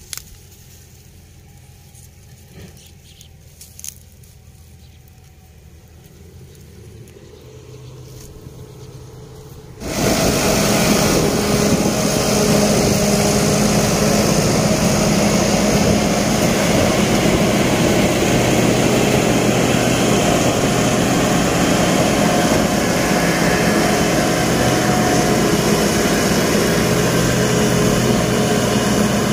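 A CLAAS Jaguar 880 forage harvester chopping standing maize and blowing the chopped silage into a tractor-drawn trailer: a loud, steady engine drone with a rushing hiss, mixed with the tractor running alongside. The machine noise starts abruptly about ten seconds in; before that there is only a faint low hum with a few light clicks.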